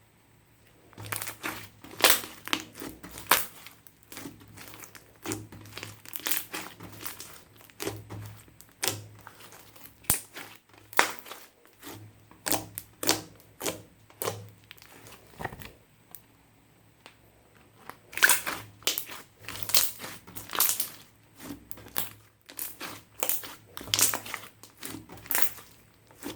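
Clear slime with makeup and glitter mixed in, squeezed and pressed by hand, giving quick irregular sticky pops and crackles. There are short pauses in the first second and about two-thirds of the way through.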